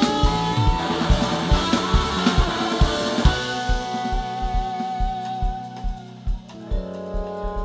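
Live four-piece rock band (electric guitar, bass, keyboards and drums) playing an instrumental passage. A little over three seconds in, the dense full-band playing drops back to held chords and a long held lead note over a steady drum beat, with a chord change near the end.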